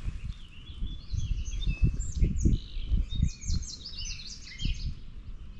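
A songbird singing a rapid string of short chirps and whistled notes, densest in the middle, over irregular low rumbles and thumps.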